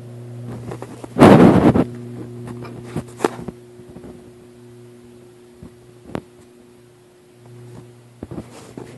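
A loud rattling clatter about a second in, then a few sharp knocks and clicks, over a steady low hum. This fits the metal doors and fittings of a steel-drum pig roaster being handled.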